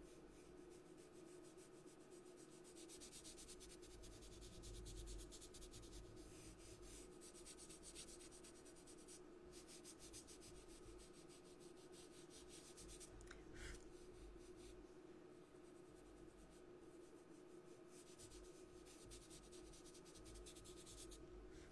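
A foam sponge blending tool rubbing black soft pastel into PastelMat paper in quick back-and-forth strokes, a faint scratchy rubbing with a couple of brief pauses, over a low steady hum.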